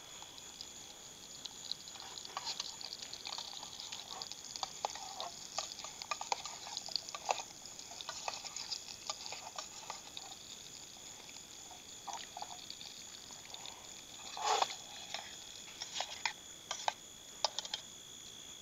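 Hot sausages frying in oil in a steel canteen cup over an alcohol burner: an irregular sizzle of crackles and pops. One louder handling noise about fourteen and a half seconds in.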